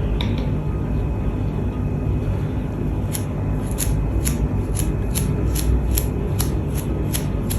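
Paintbrush spattering yellow paint onto an old aluminium kettle: starting about three seconds in, a run of short, sharp ticks about two a second, over a steady low background rumble.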